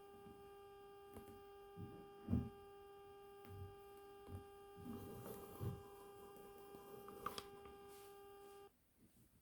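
A steady electrical-sounding hum, one held tone with overtones, that cuts off suddenly near the end, with a few soft low thumps scattered through it.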